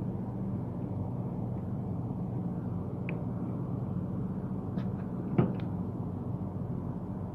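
Steady low mechanical hum, with a few light clicks and one sharper knock about five and a half seconds in.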